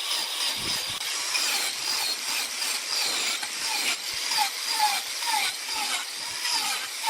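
Wood lathe turning, a hand tool cutting into the spinning wood with a steady rasping scrape. In the second half a short squeak repeats about twice a second.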